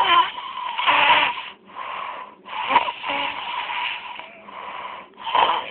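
Snoring from a sleeper: a quick run of rough, noisy snore breaths, each half a second to a second long with short breaks between them.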